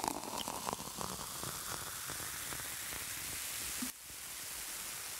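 Steady static-like hiss, crackling over the first second or so, with a brief dip about four seconds in before it picks up again.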